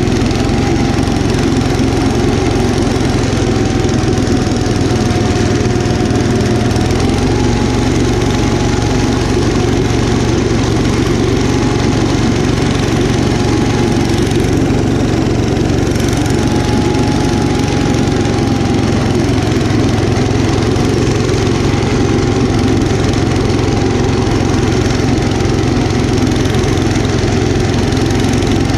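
1972 Gravely Commercial 10A walk-behind tractor's 10 hp Kohler K241 single-cylinder engine running steadily under load while blowing snow. A whine rides over it, sagging slightly in pitch and coming back up about seven seconds in.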